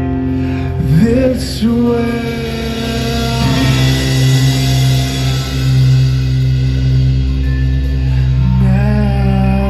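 A live metalcore band playing loudly, with sustained guitar chords and a male voice singing over them.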